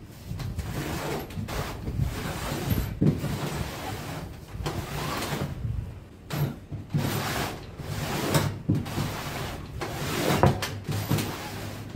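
Homemade hardboard crosscut sled pushed back and forth along a table saw's top, its runners scraping and rubbing in the table grooves through several strokes. A few sharp knocks come as it stops and changes direction. The sled is being tested for its slide: it works but tends to bind against the sides.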